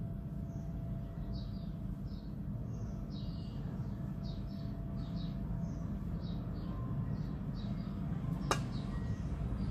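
Small birds chirping repeatedly in short, high, falling calls over a steady low rumble, with one sharp click about eight and a half seconds in.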